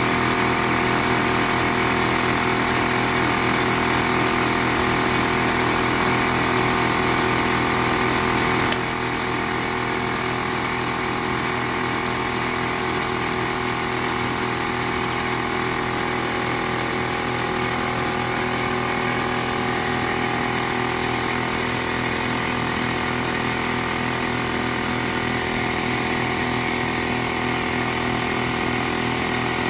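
Air compressor motor running steadily, with a slight drop in level about nine seconds in.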